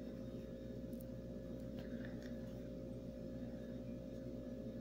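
Quiet room tone with a steady electrical hum, and a few faint soft ticks of a crochet hook and thread as slip stitches are worked.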